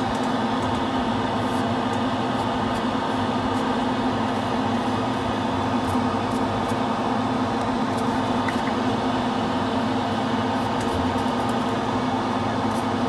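Spray booth extractor fan running with a steady motor hum.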